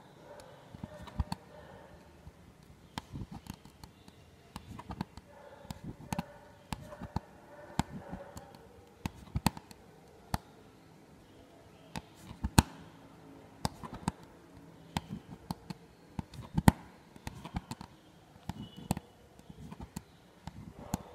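Aari hook needle punching in and out of fabric stretched on an embroidery frame while working gold zari chain stitch: irregular sharp ticks and taps, a few every couple of seconds.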